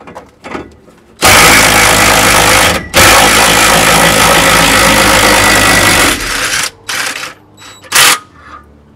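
Cordless impact driver turning a scissor jack's screw through a shop-made adapter to lower the jack: it runs loudly for about five seconds with a brief break partway through, then gives two short bursts near the end.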